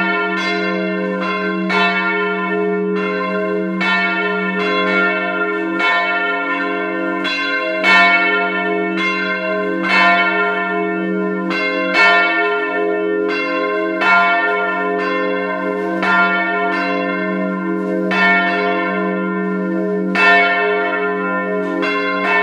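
A peal of several swinging church bells, rung by hand with ropes. The clappers strike again and again in an overlapping, uneven rhythm, with a louder stroke about every two seconds over a steady low hum from the bells.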